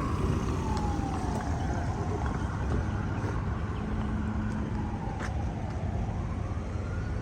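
Emergency-vehicle siren wailing, slowly falling and rising twice, over steady low traffic noise.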